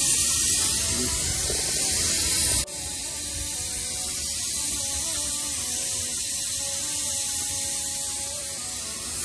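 Steady hiss of steam venting from the weighted valve of an aluminium pressure cooker on the stove, which drops suddenly in level about two and a half seconds in and then carries on steadily.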